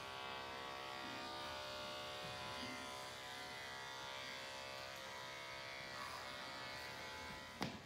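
Steady electric buzz of a small motor, ending in a sharp click near the end as it cuts off.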